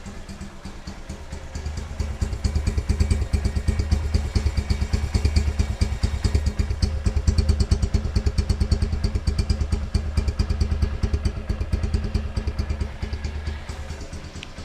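Honda CG 150's single-cylinder four-stroke engine running at a steady idle through a Roncar Turbo aftermarket exhaust, its exhaust beats coming evenly and distinctly. It gets louder about two seconds in and eases back near the end.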